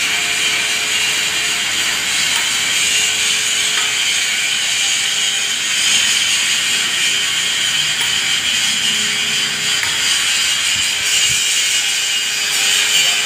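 A power tool running steadily, giving a high-pitched rasping noise with a faint steady hum underneath.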